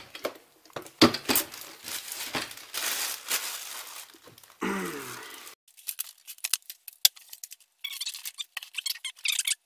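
Handling noise: rustling and crinkling for the first few seconds, then a string of light clicks and taps.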